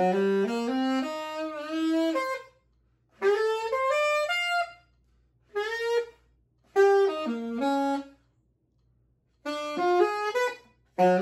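Alto saxophone played solo in fast bebop runs of notes, in short phrases broken by brief pauses.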